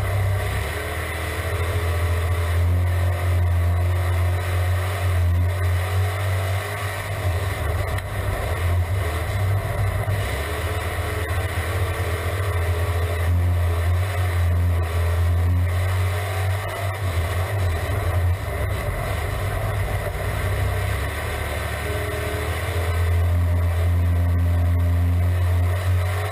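Crate V8 engine of a dirt-track sportsman race car at speed on the oval, heard from inside the cockpit. The engine note swells and eases every few seconds as the car goes down the straights and through the turns.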